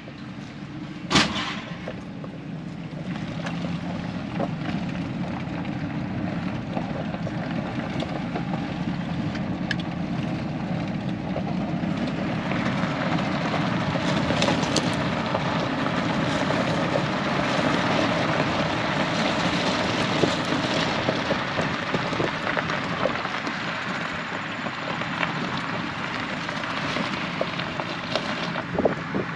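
Truck driving, heard from inside the cab: a steady engine hum under road and wind noise. The noise grows louder from about 12 seconds in and eases again toward the end. There is a single knock about a second in.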